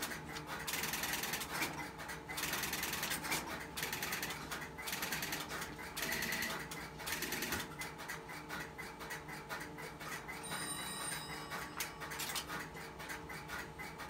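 Telephone ringing in several bursts with rapid mechanical rattling and clicking, as a call dialled from a GTE Automatic Electric 120B payphone is answered and hung up and the payphone's coin relay drops the coin toward the cash compartment.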